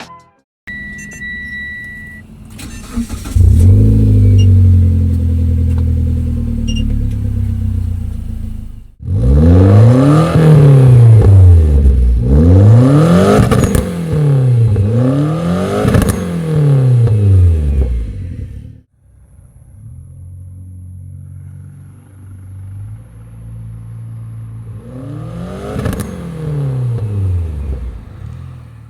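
Turbocharged 2.0-litre four-cylinder engine of a Proton Inspira fitted with a bolt-on turbo kit. After a short electronic beep it starts and runs at a high idle. Then it is blipped in three or four rises and falls of revs, settles to a lower idle, is revved once more and switched off near the end.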